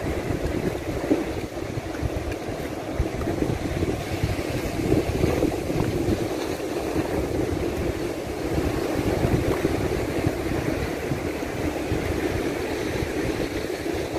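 Wind buffeting the microphone over a steady wash of sea surf.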